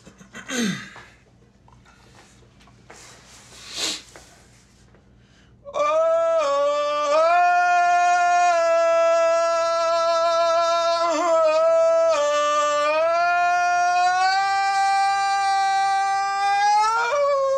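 A man's voice sings a loud, wordless, full-voiced line of long held high notes. It enters about six seconds in after a couple of breaths, steps between a few pitches, and slides up just before breaking off near the end. This is the singer tracking a new vocal counter-melody for the end of a song.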